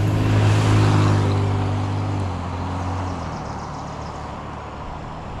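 A vehicle driving, with a steady engine hum and road noise, loudest about a second in and then fading away. It cuts off suddenly at the end.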